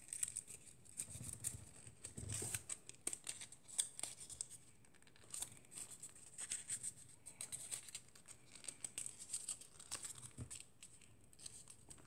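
Square origami paper crinkling and rustling in the fingers as it is folded and its creases pressed, in faint, scattered crackles and ticks.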